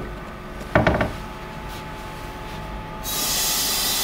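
Vacuum switched on to a reusable silicone rubber vacuum bag about three seconds in: a sudden steady hiss of air being drawn out as the vacuum is applied.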